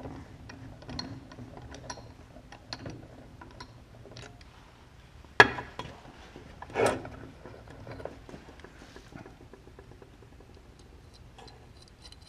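A ratcheting tap wrench clicking in small irregular strokes as a tap is turned by hand to thread a drilled hole in a metal door latch piece. Then comes a sharp metal clack about five and a half seconds in and a ringing metal clank a second later as the tools and the piece are handled.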